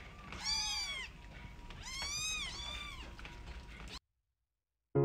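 White Munchkin kitten meowing twice, high-pitched calls that each rise and fall in pitch, about a second and a half apart. The sound cuts out completely about four seconds in, and piano music starts at the very end.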